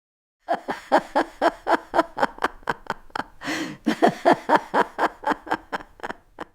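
A person laughing hard in a quick run of "ha" pulses, about four a second. The laugh breaks once for a noisy in-breath about halfway through, then carries on and trails off near the end.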